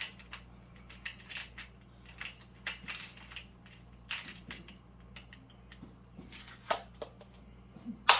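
Hands rummaging through small plastic parts and packaging: irregular crinkling rustles and small clicks, with a couple of sharper clicks near the end.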